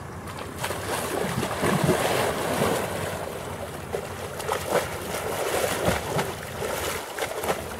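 Icy water splashing and sloshing as a person wades barefoot into an ice hole, with a bigger splash about six seconds in as he ducks fully under.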